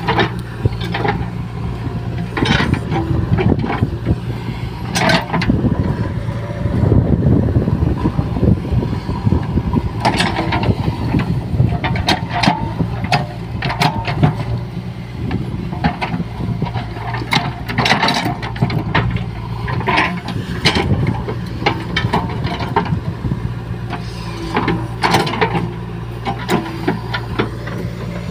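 JCB 3DX backhoe loader's diesel engine running steadily under hydraulic load while the backhoe digs, with scattered metal clanks and knocks from the bucket and arm working soil. The engine works harder and louder for a couple of seconds around seven seconds in.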